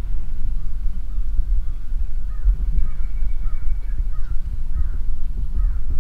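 A bird calling in a quick series of short calls, about three a second, starting about two seconds in, over a steady low rumble that is the loudest sound throughout.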